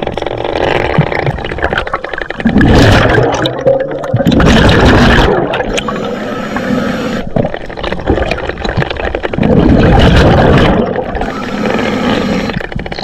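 Underwater water noise heard through a camera housing, a steady rushing and bubbling with three louder surges of bubbling, two close together near the start and one about two-thirds of the way through.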